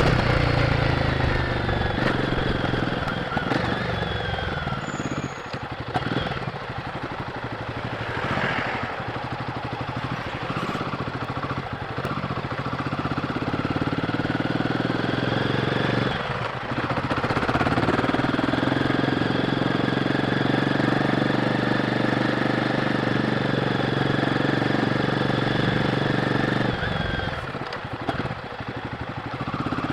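Royal Enfield Guerrilla 450's single-cylinder engine running on the stock exhaust while riding. The engine note dips briefly about five seconds in, again around sixteen seconds, and near the end, each time picking up again.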